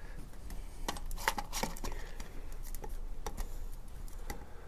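Scattered light clicks and taps from hands handling a motorcycle fuel tank and its petcock over a metal bowl.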